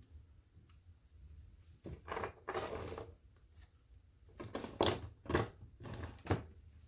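Hands handling model crane parts and packaging in a styrofoam tray: a rustle about two seconds in, then a run of sharp clicks and taps.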